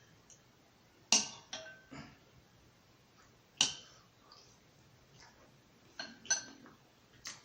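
A utensil clinking against a dish about seven times at uneven intervals, some strikes with a brief ring, the loudest about a second in and again near the middle.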